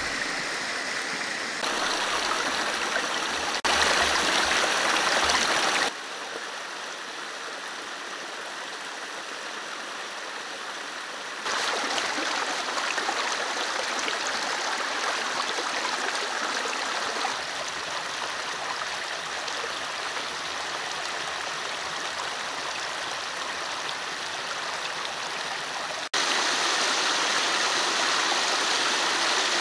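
Shallow stream flowing over rocks: a steady rush of water, its loudness stepping abruptly up or down several times.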